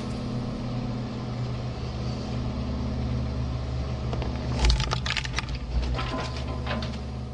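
Electric shredder motor running with a steady low hum. From about four and a half seconds in, a series of sharp cracks and crunches follows as the shredder's blades bite into and break apart a rubber toy hippo.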